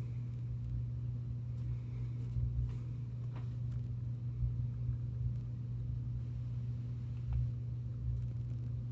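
A steady low hum with no change in pitch or level, and a few faint light ticks.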